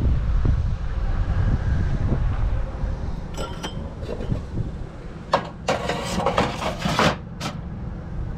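Low rumble of wind on the microphone, then a short metallic clink about three seconds in and a burst of rattling and clattering from about five to seven and a half seconds in as curbside scrap is picked up and handled.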